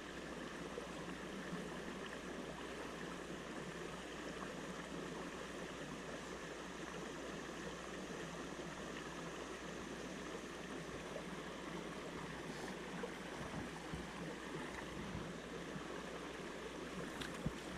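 Steady rush of a mountain trout creek flowing over rocks.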